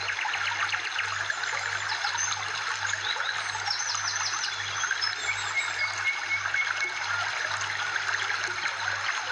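Background soundtrack of trickling, running water with birds chirping and whistling over it, and a low hum pulsing underneath.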